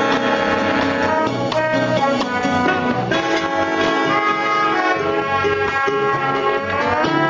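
A Latin dance orchestra playing, with brass holding chords over percussion and bass, and the horns sliding upward near the end.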